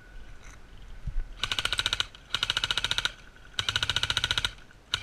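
Airsoft electric rifle firing full-auto: three short bursts of rapid mechanical clicking, about a second each with brief pauses between, and a fourth burst starting near the end.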